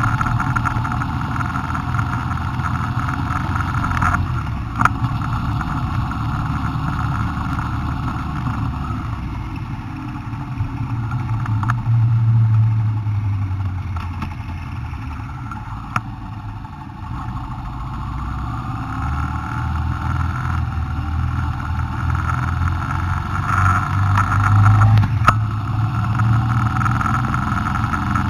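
Car engine and tyre noise heard from inside the cabin while driving, swelling as the car speeds up about twelve seconds in and again near the end. A few short knocks break through it.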